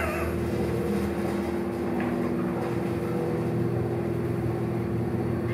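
Westinghouse passenger elevator running with its doors shut: a steady machine hum with a low drone. There is one faint click about two seconds in and a sharp click at the very end.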